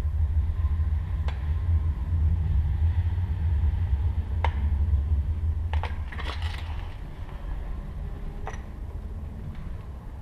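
Camera handling noise against metal panels: a low rumble that fades after about seven seconds, with a few sharp clicks and scrapes, a small cluster of them about six seconds in.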